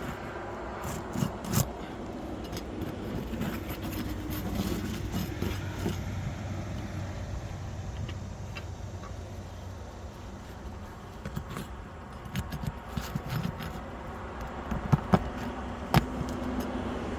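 Roofing hand tools clicking and scraping on asphalt shingles, scattered short knocks that cluster near the start and again toward the end, over a steady low background hum.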